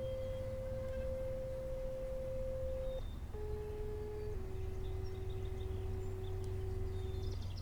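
A sequence of steady pure tones, each held at one pitch and then stepping to another: one tone lasting about three seconds, a short pause, a one-second slightly lower tone, then a lower tone held about three seconds, with a new tone starting right at the end.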